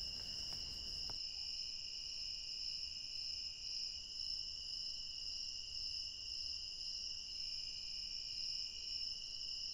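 Chorus of night insects: a steady high-pitched trilling on two pitches, with a lower trill joining in twice for a few seconds.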